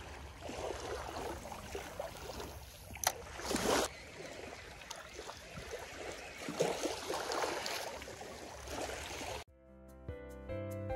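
Outdoor beach sound of small waves washing, uneven, with a louder rush of water about three and a half seconds in. It cuts off abruptly near the end, and gentle instrumental music begins.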